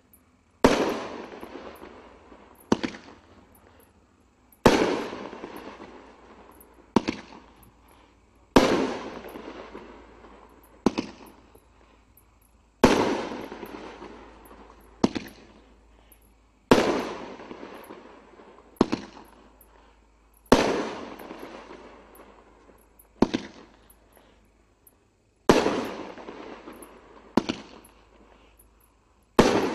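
Fireworks going off: a sharp bang about every two seconds. Louder bangs, each trailing off over three or four seconds, alternate with shorter, sharper reports.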